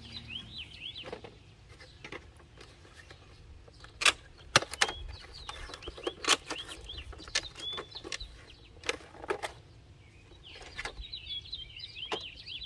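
Small birds chirping repeatedly in the background, with handling noise from paper and cardboard packaging: a series of sharp clicks and rustles from about four to ten seconds in, the loudest two close together at the start of that run.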